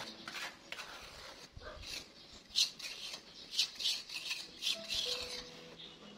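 A run of short scrapes as mortar is smoothed and scraped off along the edge of an iron drum around concrete blocks, loudest in the middle stretch. Quiet background music with held notes plays underneath.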